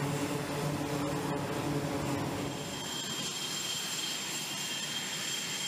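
F/A-18 Hornet jet engines running: a steady low drone, joined about three seconds in by a steady high-pitched whine.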